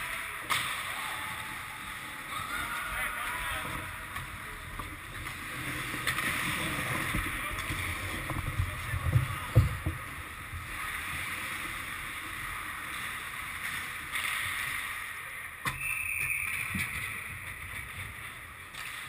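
Ice hockey play on an indoor rink: skate blades scraping and hissing across the ice, with clacks of sticks and puck and indistinct shouting. Heavy thuds against the boards come about nine to ten seconds in.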